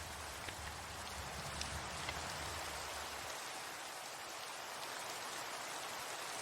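Steady rain falling, with a few sharper single drops standing out in the first two seconds. A low rumble underneath stops about halfway through.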